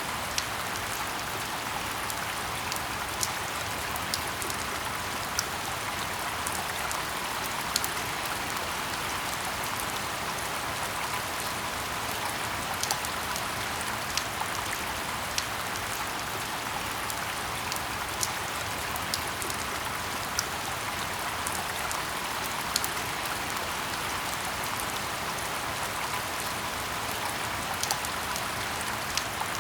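Steady rain falling in a forest: an even hiss with scattered louder single drops ticking every second or so.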